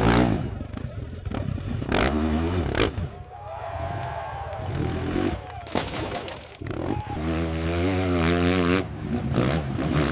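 Dirt bike engine revving as a hill-climb motorcycle crashes, with clattering knocks and scrapes from the bike tumbling back down the slope.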